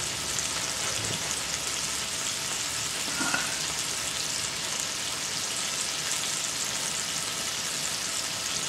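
Beef burger patties frying in cast iron skillets: a steady sizzle with fine crackling.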